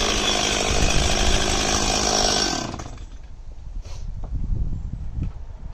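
Stihl 026 two-stroke chainsaw running at high revs. About three seconds in, the engine sound falls away to a faint low rumble.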